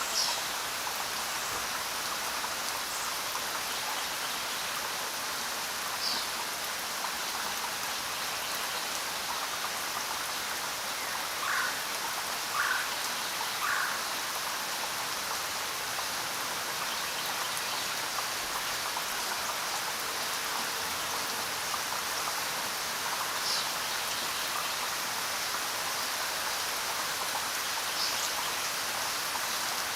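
Steady, even rainfall. A few short chirps stand out over it now and then, three in quick succession about midway.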